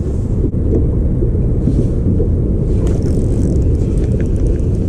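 Wind buffeting the microphone in an open boat: a steady low rumble, with a few faint ticks.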